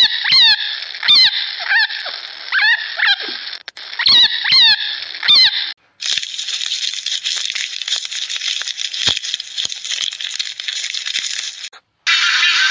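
Short squeaky animal calls that rise and fall in pitch, repeated about once or twice a second with a few clicks between them. After about six seconds they give way to a steady hiss of outdoor ambience.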